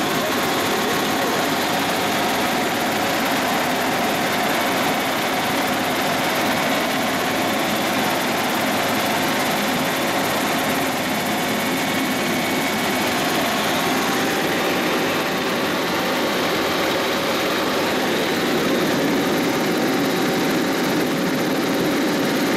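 Helicopter cabin noise in level flight: engine and rotor heard from inside the cabin as a steady, even noise with a few faint steady tones in it.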